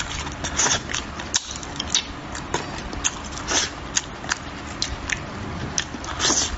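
Close-up eating sounds of a person eating spicy braised fish: irregular wet smacks, clicks and chewing.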